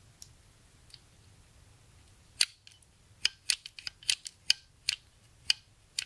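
Sliding patio door latch mechanism worked by hand, its lever and hook snapping back and forth: a run of about a dozen sharp, irregular clicks, starting a couple of seconds in, after two faint ticks.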